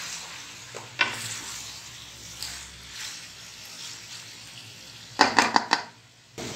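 Beef and potato pieces sizzling in oil in a metal pot while a wooden spatula stirs and scrapes through them, frying the potatoes with the meat. A click about a second in, and a quick run of loud scraping knocks a little after five seconds.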